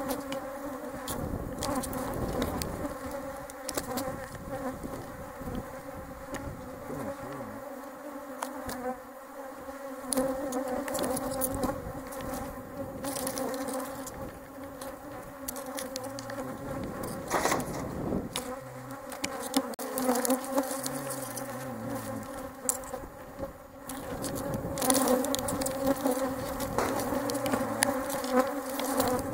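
Honeybees in flight around the hives, a steady many-voiced buzzing hum, with occasional light clicks. The buzz grows louder near the end as more bees fly close.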